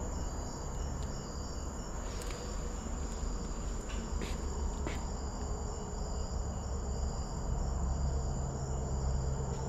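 Crickets chirping steadily in the night over a low rumble, with a few faint clicks about two, four and five seconds in.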